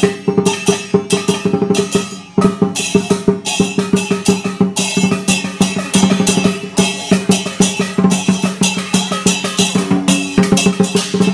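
Chinese dragon dance percussion: large drums beaten with clashing cymbals in a fast, loud, steady rhythm, with a brief lull a little over two seconds in.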